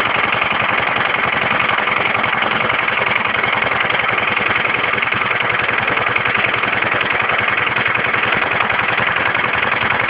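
The engine of a homemade garden tractor idling steadily, an even rapid pulse of firing strokes with no change in speed.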